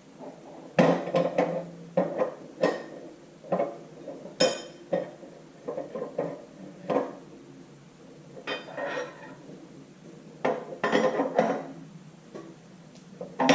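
Irregular metallic clinks and clanks of a tool turning the nut on a threaded-rod sleeve puller, drawing a new cylinder sleeve down into a tractor engine block. Some of the clinks come in quick clusters.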